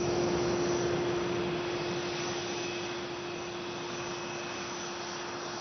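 Jet aircraft engine running: a steady whine over a broad rushing noise. It cuts in suddenly and eases off slightly.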